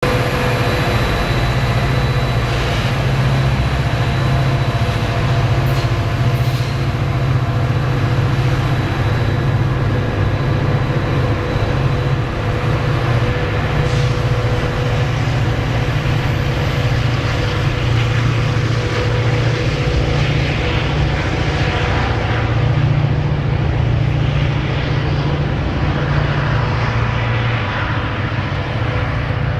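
A vehicle running steadily, a loud continuous low rumble with a few faint steady tones above it.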